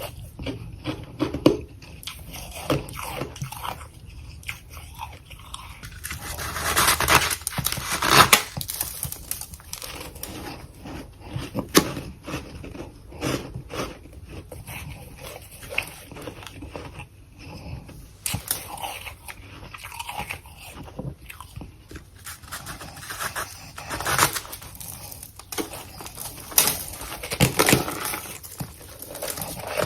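A person biting and chewing freezer frost, irregular crunches throughout, with the loudest clusters about a quarter of the way in and again near the end.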